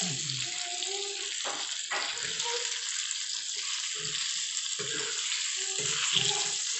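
Fish frying in hot oil in a pan, a steady sizzling hiss, with low voices talking in the background.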